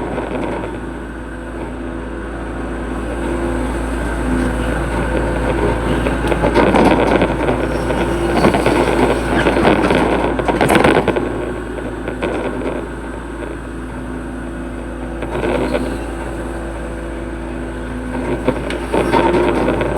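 Hitachi hydraulic excavator's diesel engine running steadily, louder and rougher for a few seconds in the middle and again near the end as it works.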